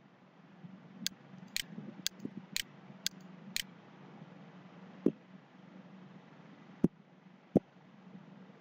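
Computer mouse clicking: six sharp clicks about half a second apart, then a few duller knocks, over a low steady hum.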